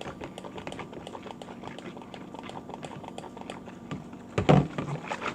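Rapid wet clicking and squishing of a sticky shampoo and soap slime mixture being worked in a bowl, with a louder thump about four and a half seconds in.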